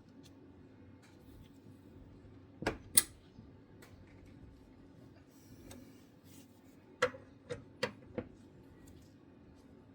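Sharp metallic clicks and clinks from hand tools working on connecting-rod bolts during the 90-degree angle-tightening step: two about three seconds in, then four in quick succession around seven to eight seconds.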